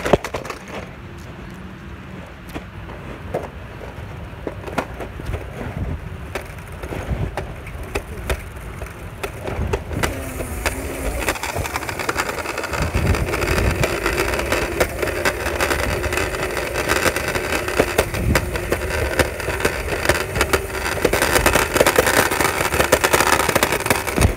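Scooter wheels rolling over pavement, a steady rumbling rattle broken by many sharp clicks and knocks, getting louder in the second half.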